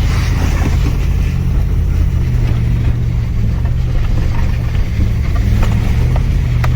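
Truck driving fast: steady engine hum with road noise, and a few short sharp knocks from about five seconds in.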